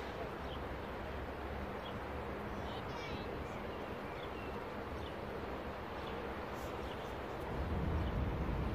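Outdoor ambience: a steady wash of background noise with faint short high chirps scattered through it, and a low rumble that swells near the end.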